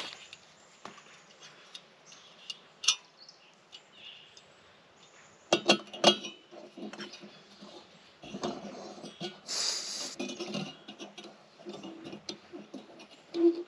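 Camp cookware and utensils clinking and knocking as coffee-making gear is handled: scattered sharp clinks, two louder knocks about six seconds in, then rustling handling noise with a brief hiss near ten seconds in.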